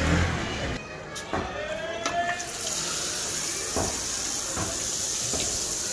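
Batter is poured from a ladle into a tin with holes in its base, standing in hot oil, and streams out into the oil and sizzles. A steady hiss sets in about two and a half seconds in, with a few light metal clinks.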